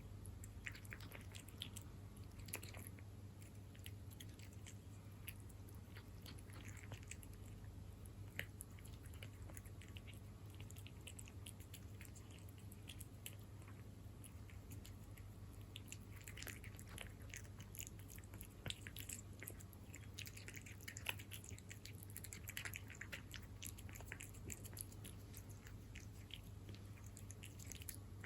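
A cat eating wet cat food in jelly: close, wet chewing with many small clicks of teeth and tongue, coming in denser spells, over a faint steady low hum.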